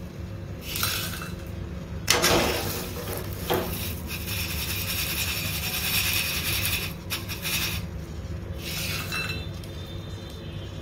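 Salt-roasted peanuts and hot salt being scooped out of a kadhai with a wire-mesh strainer: the nuts rattle and clink in the strainer while the salt sifts through the mesh back into the pan, with a sharper knock against the pan about two seconds in. The crisp rattle is the sign that the peanuts are roasted through and crunchy.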